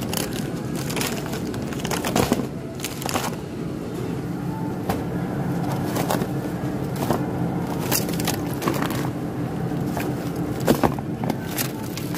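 Plastic packaging of frozen fish crinkling and crackling in scattered clicks as the packs are handled, loudest about two seconds in and again near the end, over a steady low hum.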